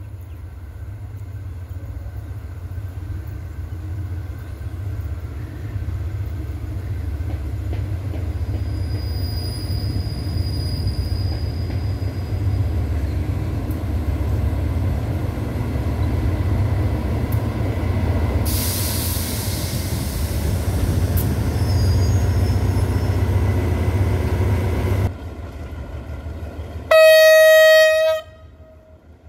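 Diesel-electric locomotive GEA 4547 approaching with a low engine rumble that grows steadily louder, with a hiss joining in for the last several seconds before the sound drops suddenly. About two seconds later comes one short, loud blast of the locomotive's horn.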